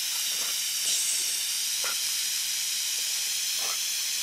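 Garden hose spraying water: a steady hiss.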